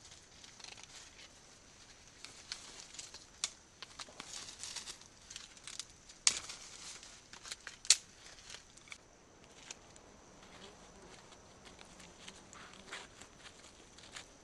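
Dry twigs and small dead branches being snapped and broken by gloved hands, with rustling and crackling of brush. Two sharp snaps stand out about six and eight seconds in, and the handling grows quieter after that.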